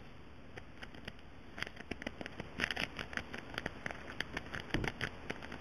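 A city rake scrubbed in and out of a five-pin brass padlock's keyway: rapid, irregular light clicking and scratching as the pins chatter, starting about a second and a half in.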